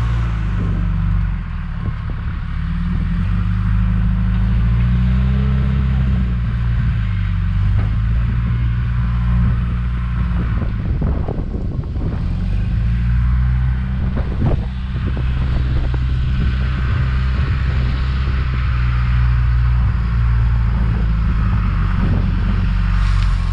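John Deere 310G backhoe's diesel engine running under load, its pitch rising and falling as the machine works. A few knocks sound near the middle.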